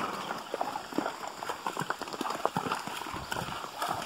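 Horses' hooves clopping on river rocks and splashing through shallow water in an uneven, irregular run of knocks.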